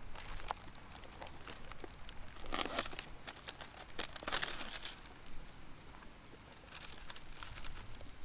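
Plastic food packaging crinkling and rustling as it is handled and torn open, in two louder bursts about a third and half way through, with lighter rustles near the end.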